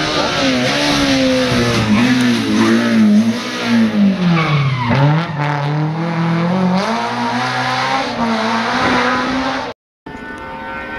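Rally car engine at high revs as it approaches and passes, dropping sharply through a downshift about halfway, then revving up again as it accelerates away. The sound cuts off suddenly near the end.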